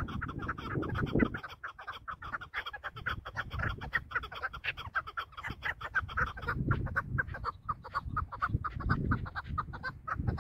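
Chukar partridge calling: a long, rapid run of short clucking notes, several a second, with a low rumble underneath at times.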